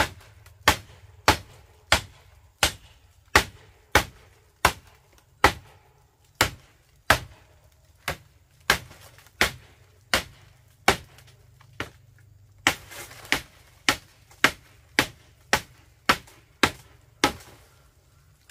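Repeated sharp blows of a hand tool, about three every two seconds, each a hard knock with a short ring, with a brief break about twelve seconds in.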